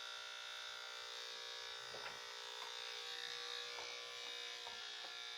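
Corded electric dog grooming clippers running with a steady, even hum.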